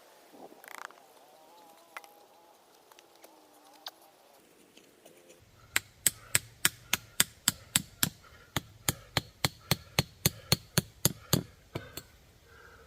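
Tent stakes being hammered into the ground: a quick, even run of about twenty sharp strikes, starting a little under halfway through and stopping about a second before the end.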